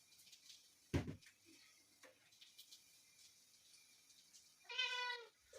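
A kitten meows once, short and high-pitched, near the end, with a single knock about a second in; otherwise quiet room tone.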